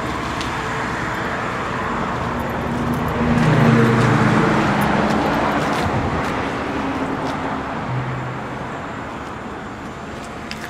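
Road traffic on a busy city street: a steady wash of passing cars, with one vehicle's engine swelling as it drives past about three seconds in and fading over the next few seconds.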